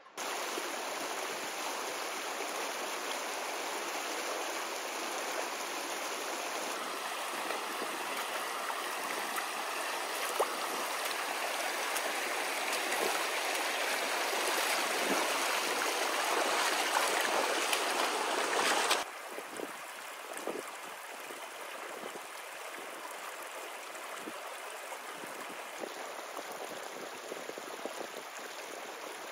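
Shallow mountain stream rushing over stones. The sound cuts in suddenly, is loudest from about seven seconds to nineteen seconds in, then drops abruptly to a quieter, steadier flow.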